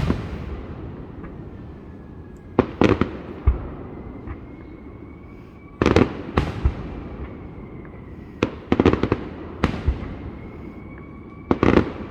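Aerial fireworks bursting: sharp booms in clusters of two to four roughly every three seconds, each trailing off in an echoing rumble.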